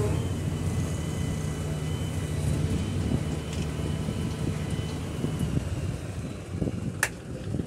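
A JCB backhoe loader's diesel engine running steadily, heard from its cab, with a single sharp click about seven seconds in.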